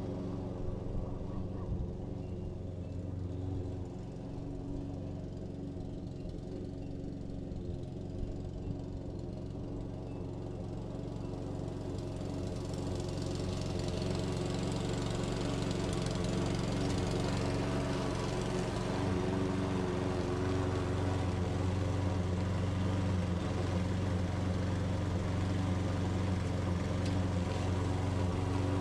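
Self-propelled walk-behind lawn mower's engine running steadily while mowing grass, growing louder about halfway through as the mower comes closer.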